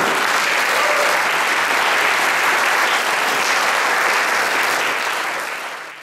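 Audience applauding steadily, fading out near the end.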